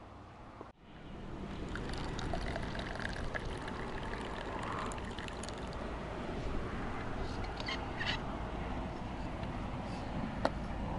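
Liquid poured from a steel vacuum flask into its cup, a steady trickling pour, with a sharp click near the end.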